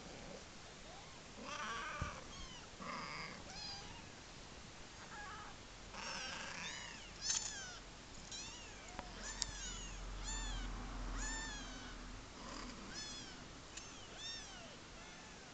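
Four-week-old kittens mewing: a long run of short, high-pitched mews, each rising then falling in pitch, coming one or two a second through most of the stretch.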